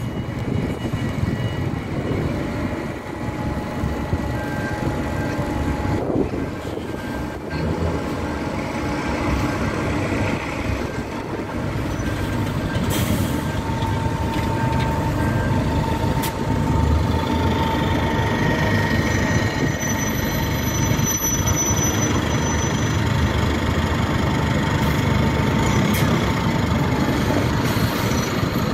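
Bus engines running as single-decker buses manoeuvre and pull away, growing louder about halfway through as a bus draws near. A few steady whining tones ride over the engine noise.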